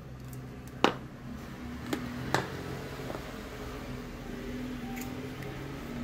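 A few sharp clicks and taps from electrical wires and a plug being handled, over a steady low hum. The loudest click comes about a second in.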